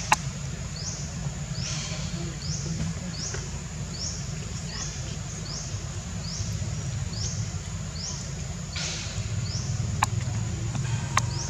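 An insect calling in the background: a high rising buzz repeated a little more than once a second, over a steady low rumble, with a few sharp clicks.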